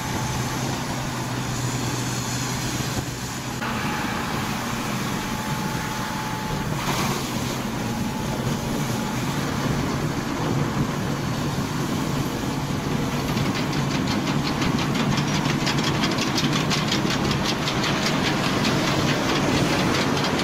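Diesel engine of a Hitachi amphibious excavator running steadily as the machine moves on its pontoon tracks through water. Over the second half a fast, even clatter joins in and the sound grows slightly louder.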